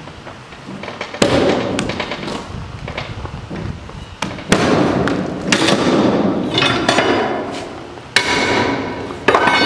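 Steel chains clanking and rattling as a chain load binder is levered tight with a cheater bar to secure a steel coil on a flatbed, with sharp metal clanks about a second in, about halfway, and twice near the end.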